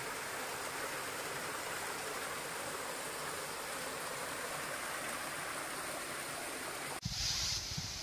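Water of a small hillside waterfall rushing steadily down over rocks. About seven seconds in it cuts off abruptly and gives way to low thumps and hiss.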